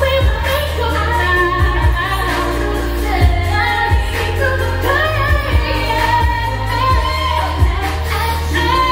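A female singer sings a pop song over backing music with a heavy bass line and a drum beat.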